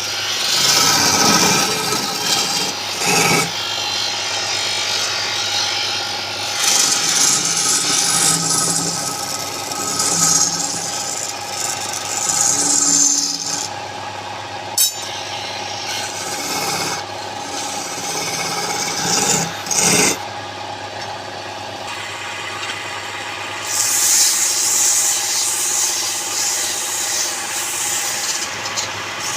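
Wood lathe running with a steady motor hum while a turning tool scrapes against the spinning wood, the rasping hiss swelling and easing in passes. A single sharp tick about halfway through.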